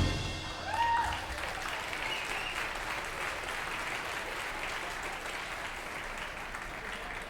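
Audience applauding after the music stops, slowly fading, with a brief high cry about a second in.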